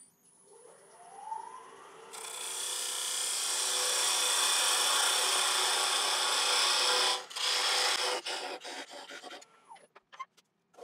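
Wood lathe spinning up with a rising whine, then a parting tool cutting into a spinning ash blank: a loud, steady scraping hiss for about five seconds that stops abruptly. Scattered clicks and knocks follow as the cut ends.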